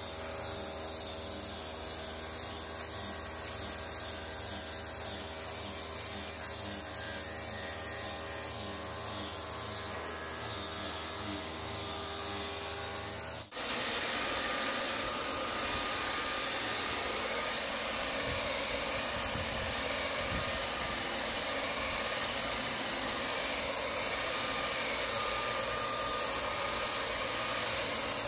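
An angle grinder fitted with a sanding disc runs steadily on a wooden board with a humming whine. About halfway through, a Maktec belt sander takes over, a louder, steady, hissing sanding noise.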